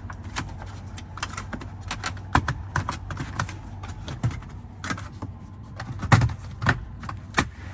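Tesla Model 3/Y wooden dashboard trim panel being wiggled out of its clips by hand: irregular plastic clicks and taps, with a few louder knocks in the middle and near the end.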